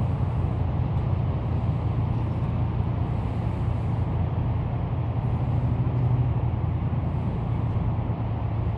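Steady low rumble of road traffic, an even background hum with no single event standing out.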